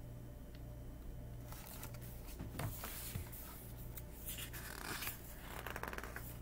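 A hardcover picture book being handled and its pages turned: irregular paper rustling with a few soft knocks, starting about a second and a half in, over a steady low hum.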